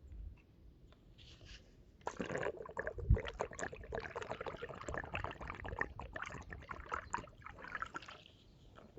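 Liquid trickling and splashing, with many small clicks, starting about two seconds in and easing off near the end, with one low thump about three seconds in.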